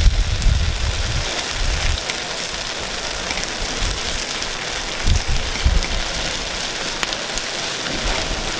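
Takoyaki batter sizzling on a hot cast takoyaki griddle, a steady crackling hiss with faint ticks. Low thumps come at the start and again about five seconds in.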